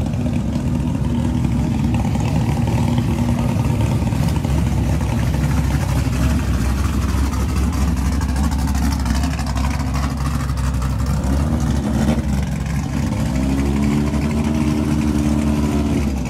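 Classic car engines running at low speed: a steady low rumble. About twelve seconds in, one engine revs up and holds a steady higher note for the last few seconds.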